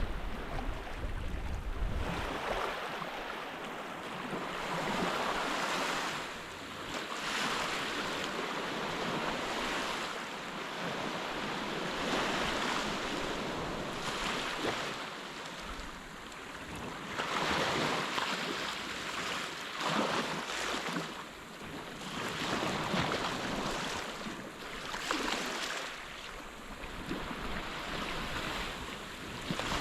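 Small waves washing onto a sandy beach, the surf noise swelling and falling back every few seconds. Wind rumbles on the microphone in the first couple of seconds.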